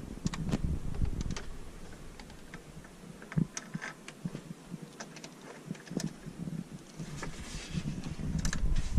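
Scattered light metallic clicks and taps of a bolt being lowered into place on a magnetic pickup tool and set into the thermostat housing.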